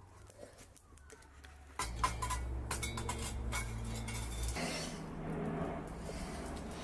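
Metal tongs clinking and scraping against a crucible as it is gripped and lifted out of a charcoal furnace full of molten aluminium, over a steady low hum. The clinks start about two seconds in and thin out into a steadier noise near the middle.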